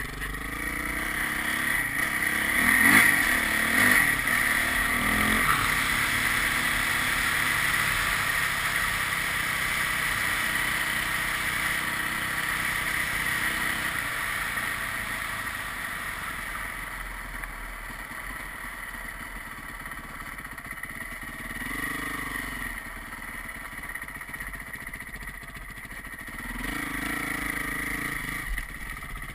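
Motorcycle engine, heard from a camera on the moving bike: the revs climb as it accelerates in the first few seconds, hold steady, then ease off about halfway through, with short rises in revs near the end.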